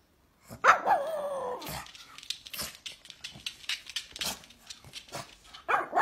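A pug barking: a loud, drawn-out bark that falls in pitch about half a second in, a run of short sharp sounds, then a second long falling bark near the end.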